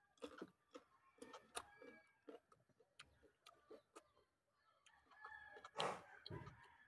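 Quiet close-up chewing and mouth clicks of someone eating, with a rooster crowing about five seconds in.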